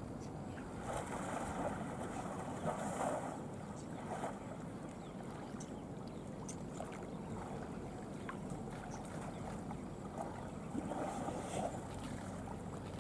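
Water sloshing and splashing as Sri Lankan elephants wade and jostle each other in a lake, in several short louder surges, over a steady low rumble of wind.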